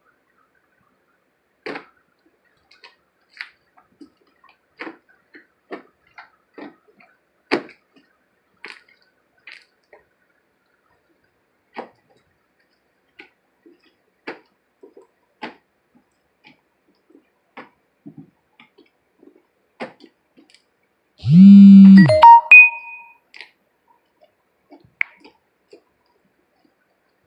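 Homemade slime being squished and kneaded by hand: scattered short, wet squelches and clicks. About 21 seconds in comes one loud, low thump lasting under a second, followed by a few brief tones.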